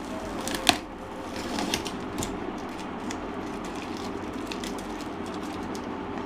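A parcel's packaging being pulled and torn open by hand: plastic wrapping and sticky tape crinkling and crackling, with a sharp click a little under a second in.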